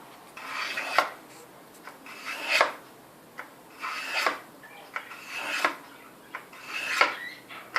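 Steel kitchen knife blade drawn through a Victorinox pocket ceramic sharpener, five rasping strokes about one and a half seconds apart, as a dull knife of soft, cheap steel is sharpened.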